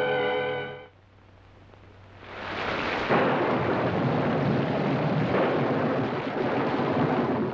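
Thunderstorm: heavy rain and rumbling thunder swell up out of a brief lull about two seconds in, with a sudden loud thunderclap about three seconds in. A held music chord dies away in the first second.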